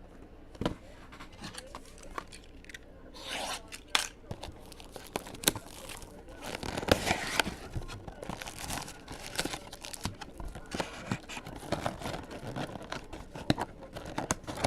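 Trading-card packs being torn open by hand: wrapper tearing and crinkling, with a steady run of small clicks and scrapes as cards are handled.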